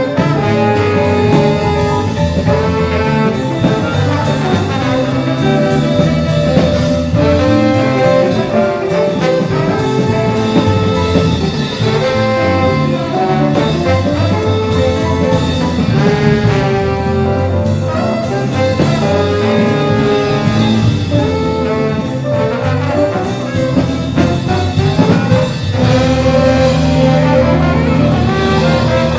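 Student jazz ensemble playing, brass and saxophones carrying the melody over a steady beat.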